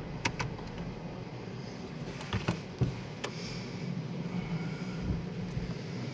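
Automatic car wash heard from inside the car as it enters the rotating brushes: a steady low machinery hum with a haze of water noise, and a few sharp knocks and clicks in the first few seconds.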